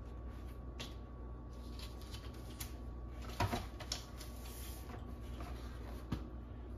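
Paper rustling with a few light clicks and taps as a printed sheet and backing are fitted into a black poster frame; the sharpest click comes about three and a half seconds in.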